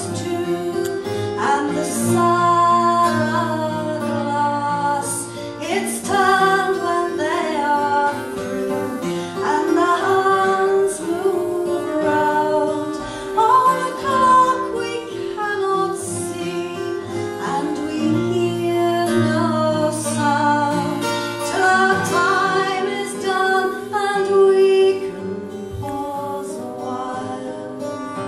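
Folk music: plucked acoustic guitar accompaniment with a woman singing a slow melody.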